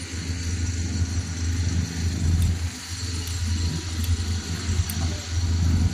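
Passenger train standing at the platform, its engine running with a steady low hum that swells and eases.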